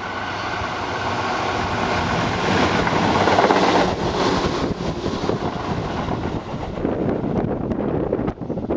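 Tobu 8000-series electric train passing through a station without stopping: a rumble that grows as it approaches, loudest about three and a half seconds in as it passes close, then wheels clattering along the rails as the cars go by, dropping away near the end.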